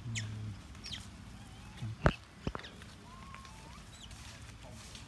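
Short high-pitched animal chirps and brief whistles, with two sharp clicks close together about two seconds in, over a faint low hum.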